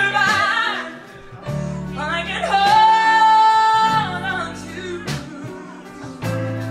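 Female singer performing a soul ballad live with band accompaniment, holding one long note in the middle over low, steady bass and guitar chords.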